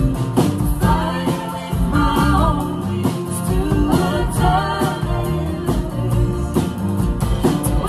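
Live band playing a song: female vocals over strummed acoustic guitars, bass and a steady drum beat.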